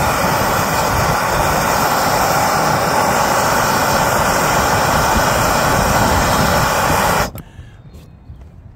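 Handheld gas soldering torch burning with a steady hiss while it heats a copper elbow joint and solder is fed in. The hiss cuts off suddenly about seven seconds in.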